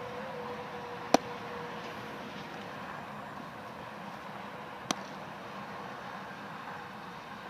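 A baseball pops into a leather fielder's glove with a sharp smack about a second in. A fainter smack follows about five seconds in as the return throw is caught farther off. A steady background hum runs underneath.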